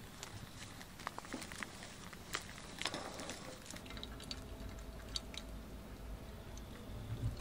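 Ground coffee rustling and ticking as it is tipped from a paper bag into a paper drip filter, then hot water poured from a kettle onto the grounds. From about four seconds in, the low rumble of a passing train builds underneath.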